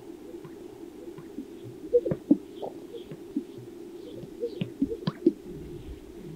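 Greater sage-grouse males strutting: sharp popping sounds from the males' inflated air sacs, a pair about two seconds in and a cluster about five seconds in, over a steady low background hum.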